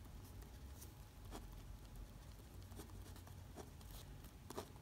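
Faint scratching and light ticks of a retractable pen writing on paper, over a low steady hum.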